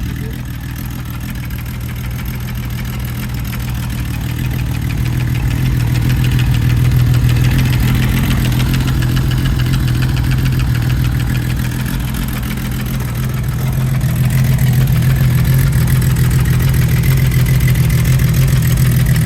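Freshly rebuilt Kawasaki KZ1300 water-cooled inline-six engine running, carrying a noise that the owner finds weird and cannot place. The engine speeds up a little about five seconds in, eases off, and rises again about fourteen seconds in.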